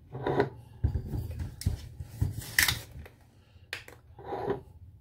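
A bottle and bar tools are handled on a kitchen counter: a few sharp clicks and knocks with two short bursts of rustling, one near the start and one near the end.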